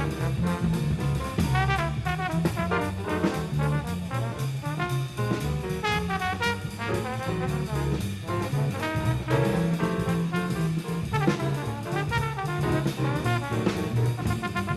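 Bebop jazz trombone improvising a solo in quick, unbroken runs of eighth notes, accompanied by bass and drums.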